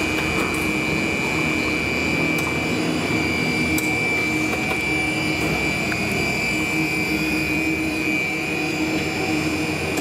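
Plastic straw extruding line running: a steady machine hum with a constant high whine over a lower drone, and a couple of faint ticks.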